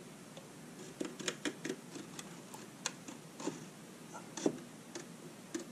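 Hobby knife blade scoring a thin ramp panel: a scatter of light, irregular ticks and scrapes, with one sharper click about four and a half seconds in.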